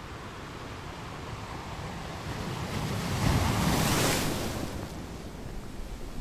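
Sea waves surging on a shore, one wave swelling to a loud crash about three to four seconds in and then washing away.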